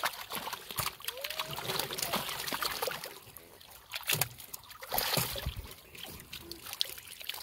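Live catfish thrashing in shallow water inside a fishing net, with splashing, sloshing and irregular wet slaps as hands grab at them; loudest about four to five seconds in.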